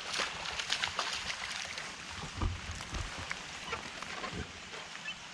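A small hooked bass being brought to a kayak: a flurry of splashing and clicks in the first second and a half, then scattered clicks, over a steady hiss of rain.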